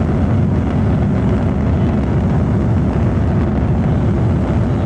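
Steady low rumble of a running vehicle, unbroken and even in level.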